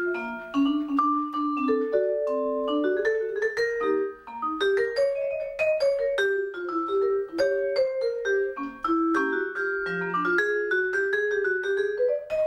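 Marimba played with mallets: a quick running melody of many struck notes over a lower line, with a held note at the end.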